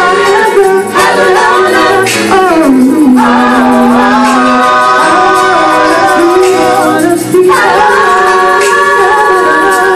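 Gospel worship song: a sung vocal line holding long notes and sliding between pitches over backing music.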